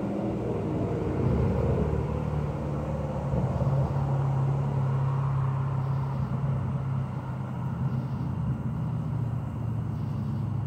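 A vehicle engine running nearby: a low, steady hum that swells up around the start, holds for several seconds, then eases off and drops slightly in pitch near the end.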